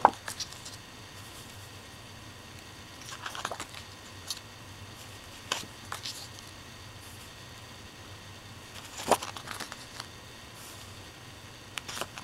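Glossy photo prints being handled and flipped one by one: scattered short paper rustles and slides of card, the sharpest about nine seconds in.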